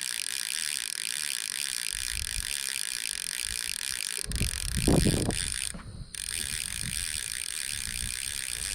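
Fishing reel clicking rapidly and steadily as a hooked fish is played and line is worked. Low thumps and rumbling of rod handling or wind come in around the middle, with a brief break in the clicking a little later.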